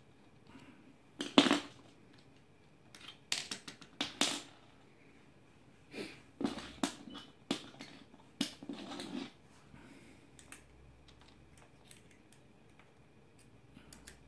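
Irregular clicks and small knocks of a bolt, a screwdriver and plastic parts being handled at the end of an RC excavator's arm as the attachment's bolts are taken out. The loudest knock comes about a second in, with more clusters of clicks in the middle.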